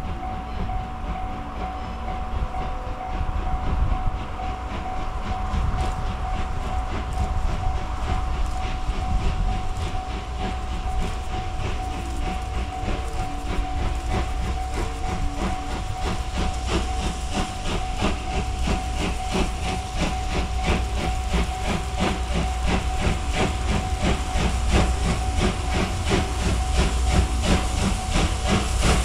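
JNR Class C58 steam locomotive hauling the SL Ginga up a steep grade, working slowly with a rhythmic chuff of exhaust over a low rumble. The beats grow clearer and louder through the second half as it approaches.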